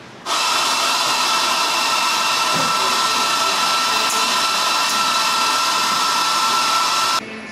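Espresso machine steam wand hissing loudly with a steady high whistle. It cuts in sharply just after the start and shuts off sharply near the end.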